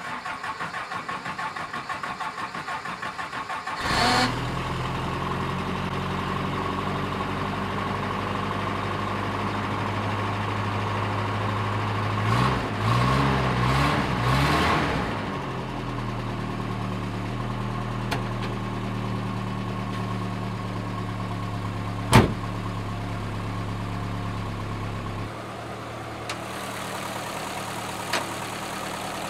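Toyota 20R four-cylinder engine, fitted with a Flowtech header on the stock exhaust pipe, cranking for about four seconds before it catches, then idling. It is revved a few times in the middle. There is a single sharp click later, and the idle drops lower near the end.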